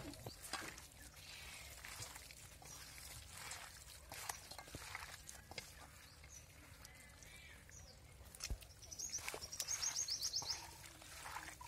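Faint wet squelching of hands mixing marinated chicken pieces in a steel kadai, with a few bird chirps. About nine seconds in, a bird sings a rapid high trill lasting over a second, the loudest sound here.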